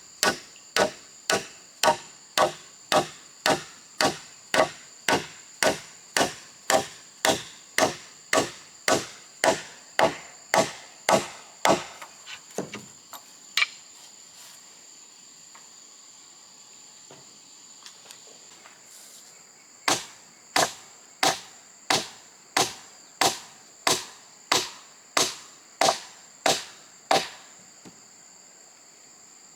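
Rhythmic blows of a tool striking wood, about two a second, which pause after about twelve seconds, resume near twenty seconds and stop again shortly before the end. Insects keep up a steady high chirring throughout.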